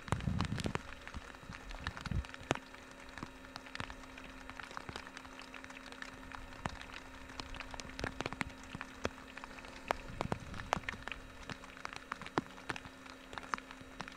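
Rain pattering: scattered drops ticking irregularly throughout, over a faint steady low hum.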